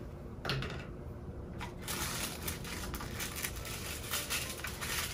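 Crinkling and rustling of a small white pouch and its paper wrapping as they are handled and unfolded by hand: a short rustle about half a second in, then steady crackly crinkling from about two seconds in.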